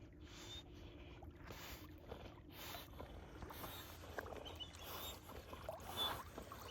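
Faint water sloshing and splashing around a kayak, with soft, regular strokes about twice a second for the first few seconds, then scattered small splashes and drips.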